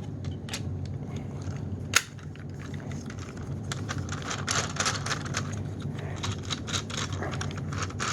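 Plastic parts of a Hoover SteamVac Widepath carpet cleaner being fitted back together: a sharp snap about two seconds in as a piece clicks into place, then a run of quick plastic clicks and rattles.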